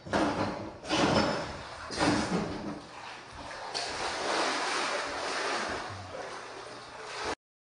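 Sloshing and splashing of someone wading through shallow floodwater, with a surge about once a second at first, then a steadier wash of water noise that cuts off suddenly near the end.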